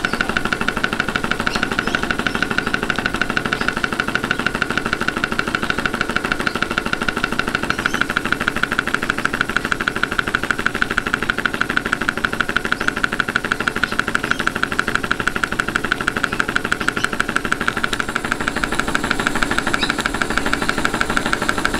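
A Stuart S50 model horizontal steam mill engine is running steadily under steam, its exhaust beating in a rapid, even rhythm.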